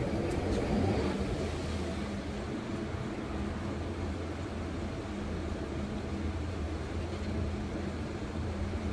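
Steady low engine hum with city street traffic noise.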